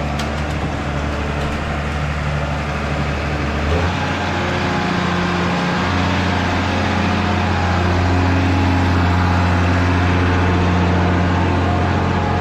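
Engine of a farm feeding machine running steadily, its pitch stepping up a little about four seconds in.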